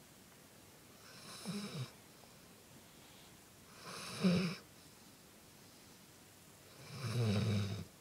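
A dog snoring in its sleep: three long snores about three seconds apart, the last the longest. The dog is worn out after agility training.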